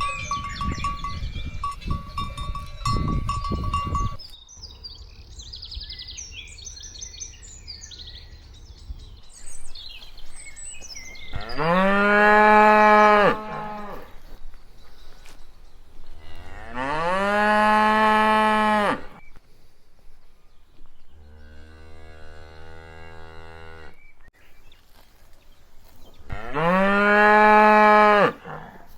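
Cattle mooing: four long moos a few seconds apart, three loud and one fainter and lower. A few seconds of noise with a steady high tone come before the first moo.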